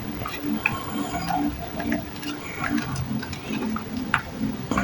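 Light, scattered clicks and scrapes of a small air mattress pump's glued plastic casing being pried open by hand.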